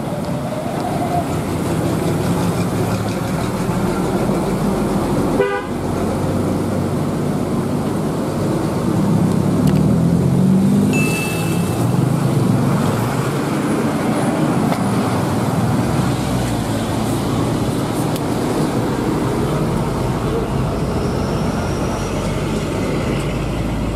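Road traffic passing close by, engines running, with a vehicle horn tooting around the middle. A sharp click sounds about five seconds in.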